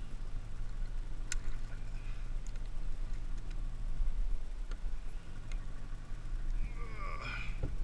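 Steady low rumble around a small fishing boat on the water, with a few sharp clicks and small splashes while a hooked tuna is held on the leader at the boat's side. There is a short vocal exclamation near the end.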